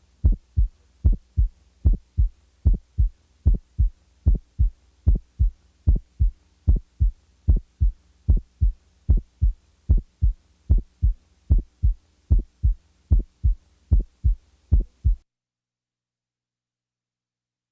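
Heart sounds as heard through a stethoscope, beating regularly at about 75 a minute, with the first heart sound widely split into two separate components, a sign of the two ventricles contracting out of step, for example in right bundle branch block. A faint steady hum runs underneath, and the beating stops abruptly about 15 seconds in.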